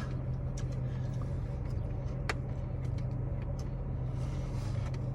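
A steady low mechanical hum, with a few faint clicks and rustles, the clearest about two seconds in.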